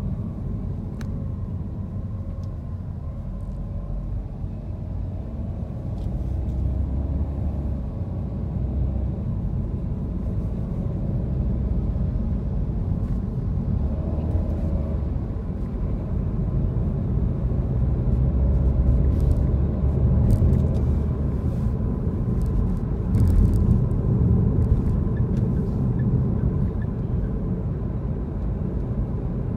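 A car driving on a city street: a steady low rumble of engine and tyre noise that grows louder in the second half.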